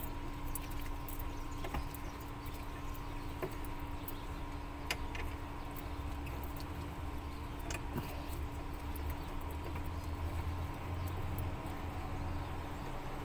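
Scattered clicks and clinks of hand tools and metal parts as a car seat's bolts are started and tightened, over a steady low hum.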